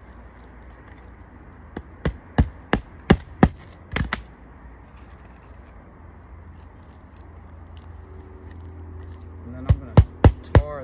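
Claw hammer striking on an asphalt shingle roof: a run of about seven quick blows, some three a second, about two seconds in, then another quick run of blows starting near the end.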